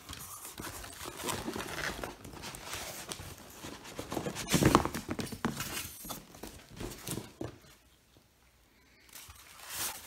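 Cardboard box and packing being handled by hand: irregular rustling, scraping and knocking of cardboard, styrofoam and plastic wrap, with one loud knock about halfway through. It goes nearly quiet for about a second near the end.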